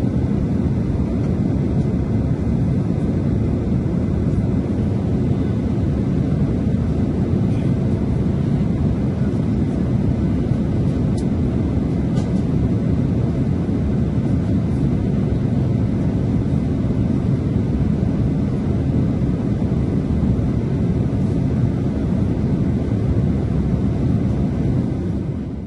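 Steady low drone inside the cabin of a Boeing 787 Dreamliner in flight: the even rush of airflow and engine noise, with no change in level.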